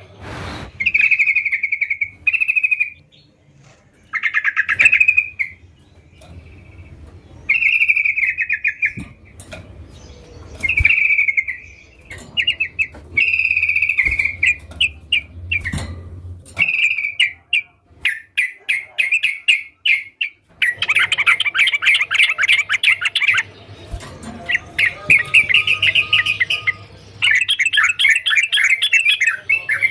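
Yellow-vented bulbul (trucukan) singing: short bubbly chattering phrases repeated every second or two, turning into a denser, almost continuous chatter in the last third.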